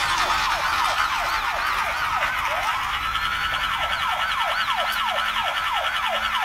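Electronic toy police car siren wailing in quick falling sweeps, about three a second; about halfway a steady high tone and a fast warble join in.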